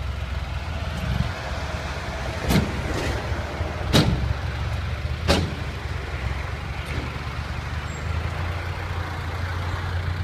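Six-wheel dump truck's diesel engine running steadily at a low drone. Three sharp knocks come a little over a second apart, in the first half.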